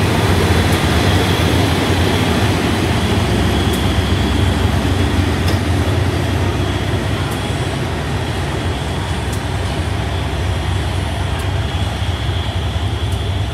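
Passenger train running: a steady low rumble of the train on the rails, with faint sharp clicks every couple of seconds, easing off slightly in the second half.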